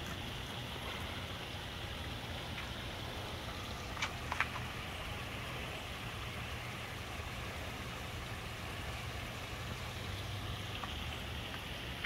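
Koi pond waterfalls and stream running steadily, a continuous splashing rush of water, with a couple of short sharp clicks about four seconds in.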